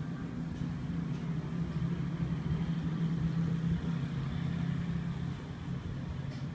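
Hot-air rework gun blowing steadily over a laptop motherboard: a constant low hum with a hiss of air.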